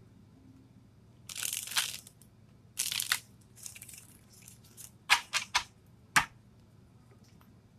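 A deck of tarot cards being shuffled by hand: several short bursts of cards sliding against each other, then four sharp clicks about five to six seconds in.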